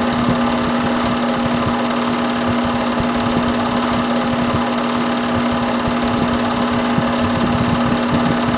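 Film projector running: a steady mechanical whir with a fast, even clatter and a strong hum.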